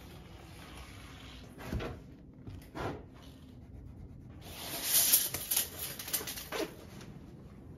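A few dull knocks, then a louder stretch of scraping and clattering about five seconds in, as a 2x4 board is handled. No saw is running.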